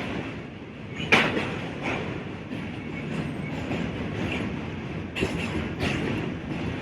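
Subway train running along the track: a steady rumble with sharp clacks over the rail joints, the loudest about a second in and two more near the end.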